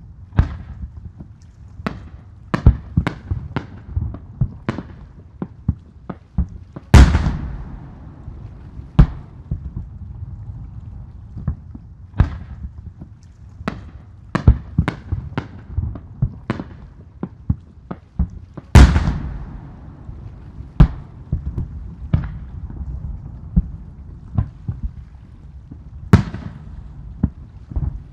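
Aerial firework shells bursting in an irregular string of sharp bangs, with three much louder bursts about 7, 19 and 26 seconds in, each trailing off in a long echo.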